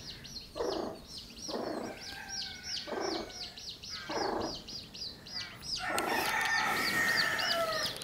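Baby chicks peeping steadily, about four high cheeps a second, while the hen sheltering them clucks low in short bursts about once a second. About six seconds in, a rooster crows for roughly two seconds.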